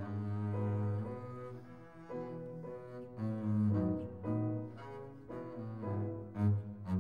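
Background music: a slow tune of low, sustained notes, each held for about half a second to a second before the next.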